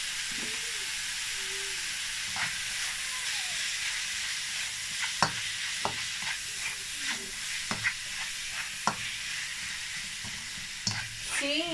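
Minced beef and onion sizzling steadily in a non-stick frying pan, stirred with a black plastic spatula that clicks and scrapes against the pan several times in the second half.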